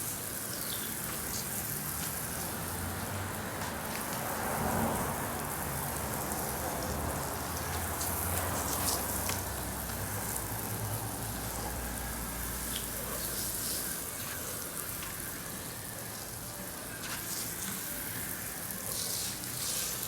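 Soft-wash surfactant mix spraying from a fan-tip hose nozzle, driven by a 12-volt pump, and pattering steadily onto the patio surfaces like rain.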